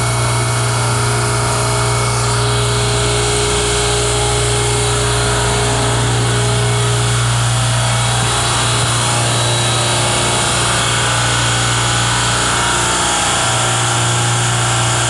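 Commercial refrigeration compressor rack running: a steady, loud machine hum with an even hiss over it, constant throughout.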